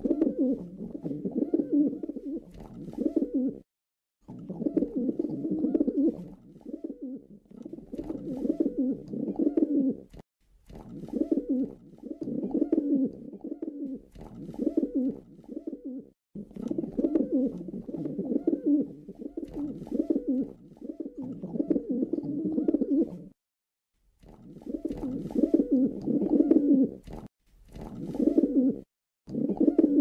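Pigeons cooing in low, repeated throaty phrases, broken by brief sudden silences several times.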